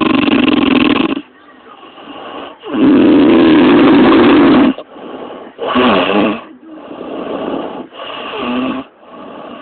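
A woman snoring heavily in her sleep: five rasping snores in a row, the loudest about three seconds in and lasting about two seconds, the last two softer.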